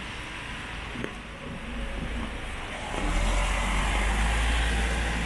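Wet street in the rain: a steady hiss of rain and wet-road noise, with a vehicle's low rumble growing louder about three seconds in.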